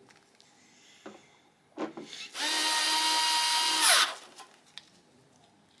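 An electric screwdriver runs steadily for about a second and a half, driving in a deck cover screw, then winds down in pitch as it stops. A couple of light clicks come before it.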